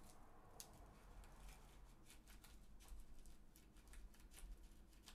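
Faint crinkling and clicking of a small plastic zip bag of diamond-painting drills being handled and pressed into a small clear plastic storage box, many short crackles through the whole stretch.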